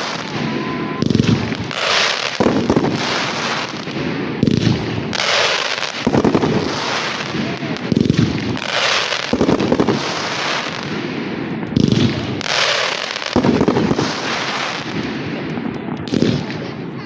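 Fireworks display: aerial shells bursting one after another, about one a second, with no let-up in between.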